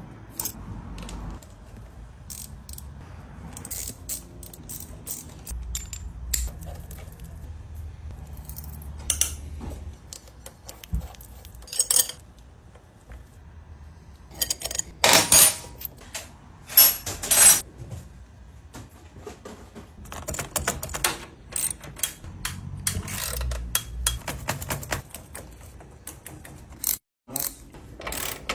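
Scattered metallic clicks, clinks and rattles of tools and motorcycle chain and sprocket parts being handled, with a few louder clanks about halfway through.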